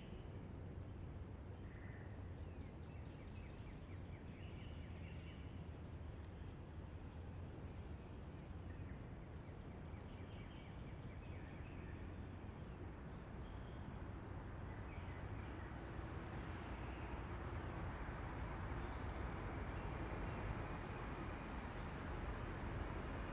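Woodland ambience: a faint, steady low rumble that grows louder toward the end, with a few faint bird chirps in the first half.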